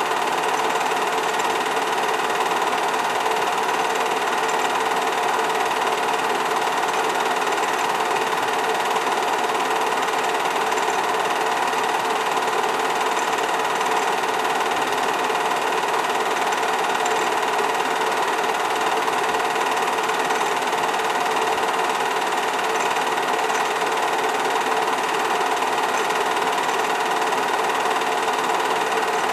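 8mm film projector running with a steady mechanical whir.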